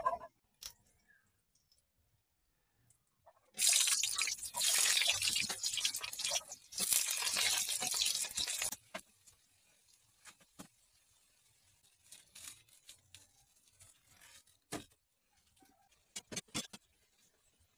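Sweet potato slices sizzling in hot oil in a metal wok. The frying noise starts suddenly about three and a half seconds in and drops away at about nine seconds, leaving faint sizzling with scattered light clicks and scrapes of a metal spatula against the wok.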